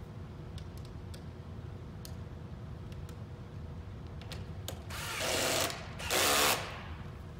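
Cordless drill driving bolts: two short runs about five and six seconds in, after a few light clicks of metal parts being handled.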